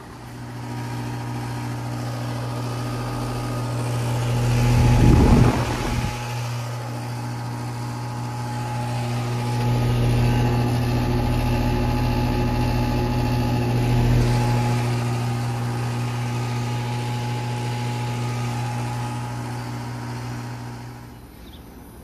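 Outdoor air-conditioner condensing unit running in cooling mode: a steady low compressor hum with the condenser fan's whir. A short rush of air noise comes about five seconds in, and the hum drops away near the end.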